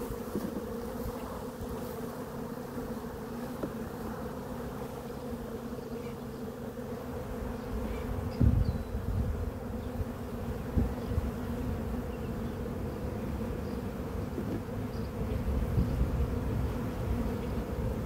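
Honeybees from an open hive buzzing in a steady hum. A single dull thump sounds about eight seconds in.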